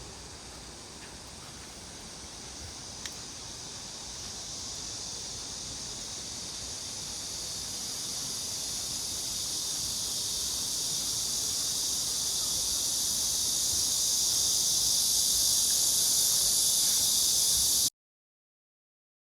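Chorus of cicadas: a steady high-pitched shrill that swells gradually louder and then cuts off abruptly near the end.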